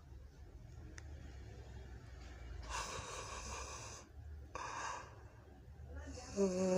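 A person yawning: a long, breathy intake of air about three seconds in, a shorter breath near the five-second mark, then a drawn-out voiced yawn with a falling pitch starting near the end.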